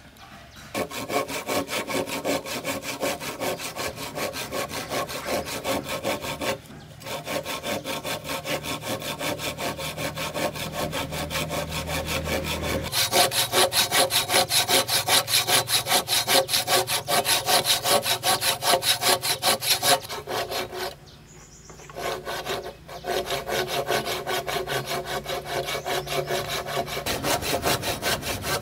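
Hand saw cutting through wood in quick, even back-and-forth strokes. It stops briefly twice, and the strokes are louder and brighter in the middle stretch.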